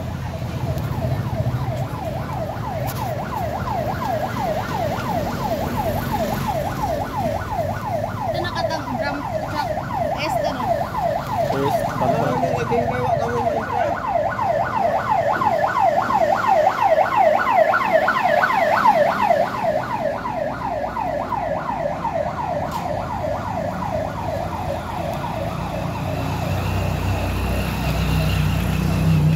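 Vehicle siren on a fast yelp: evenly repeated pitch sweeps, several a second. It grows louder toward the middle and fades out near the end, over the low rumble of passing motor tricycles.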